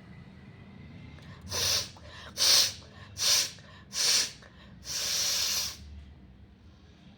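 A person forcing air hard through the nose: four short, hissy blasts about a second apart, then one longer blast.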